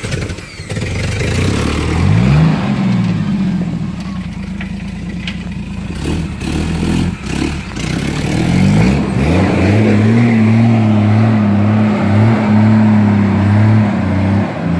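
Jeep Wrangler YJ's engine revving under load as it crawls over rocks. The pitch rises about two seconds in and falls back, then climbs again near nine seconds in and holds steady. A few knocks are heard around six to seven seconds in.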